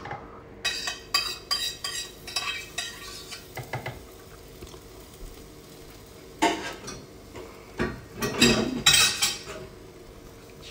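A spoon clinks and scrapes against a bowl of pancake batter as the batter is scooped and poured into a hot, oiled frying pan, with a faint sizzle of batter frying. There are quick clinks through the first few seconds, then louder scrapes about six and a half seconds in and again around eight to nine seconds.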